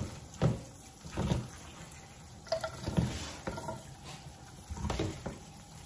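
Pull-down kitchen sprayer running water onto hearts-of-palm noodles in a plastic strainer in a stainless steel sink, with a few short soft knocks as the noodles and strainer are handled.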